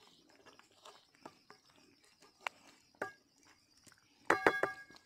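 Wooden spoon stirring chicken in a shallow metal karahi, with scattered scrapes and knocks. Near the end comes a quick run of loud taps against the pan that set the metal ringing.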